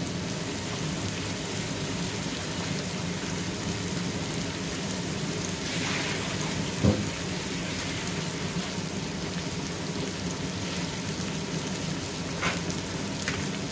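Sliced onions sizzling steadily in oil in an aluminium pot, still pale at the start of browning. A sharp click sounds about halfway through and two fainter ones near the end.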